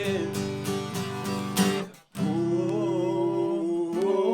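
Worship band music between sung lines: an acoustic guitar strumming steady chords, cutting out abruptly about two seconds in, then held chords with a wavering melody line.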